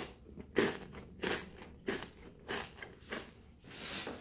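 Crunchy chewing of a snack of whole fried baby crabs: a bite, then a crunch about every 0.6 seconds. It is the crispy snack-like crunch (바삭바삭), not the sound of crab shell cracking.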